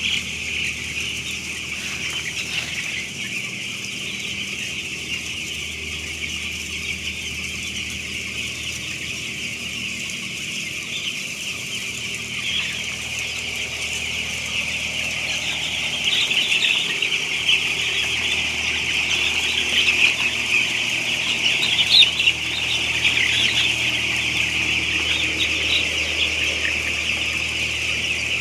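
A large flock of week-old broiler chicks peeping all at once, a dense high chorus that grows louder a little past halfway. A steady low hum runs underneath.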